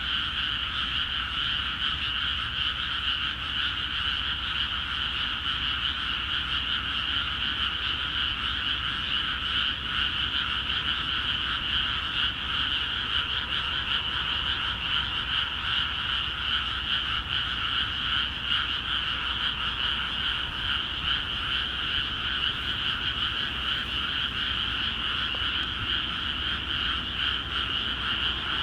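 Many rice-paddy frogs calling together in a dense, steady chorus, thousands of overlapping croaks merging into one continuous din.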